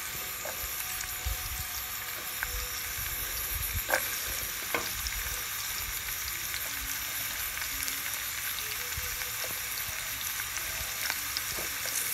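Chopped red onion and garlic sizzling steadily in hot oil in a pan, with a couple of sharp clicks about four and five seconds in.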